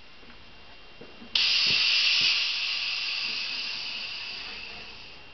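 Compressed air hissing in the pneumatic load rig as it is set to six bar: the hiss starts suddenly about a second and a half in and fades away over about four seconds, with a faint click or two around its start.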